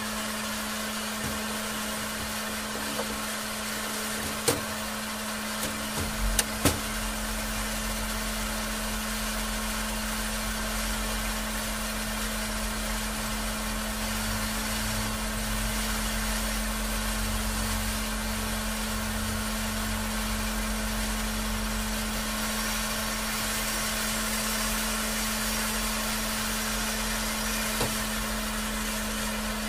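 Steady hum and hiss of a running LED-repair heating machine, with a few sharp clicks about four to seven seconds in. A deeper low hum joins at about six seconds.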